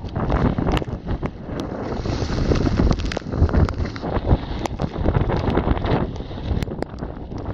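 Strong gusty wind buffeting the microphone on a Hobie under sail in rough water, with irregular knocks and splashes from the chop.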